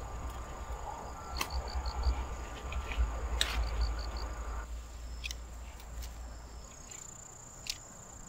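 Insects chirping: a steady high trill, with a short run of four quick chirps repeating every couple of seconds. Under it is a low rumble that fades about two-thirds of the way through, and a few sharp clicks.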